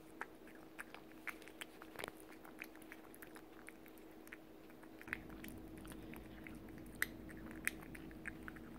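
British Shorthair cat chewing and licking soft chicken-breast cake from a bowl: irregular wet chewing and smacking clicks, several a second, over a faint steady hum.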